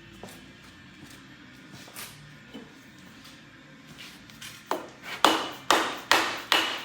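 A few faint clicks of tools, then, near the end, a run of hammer blows about two a second on the Hemi's cylinder head, each with a metallic ring, to break the head gasket free so the head can be lifted off.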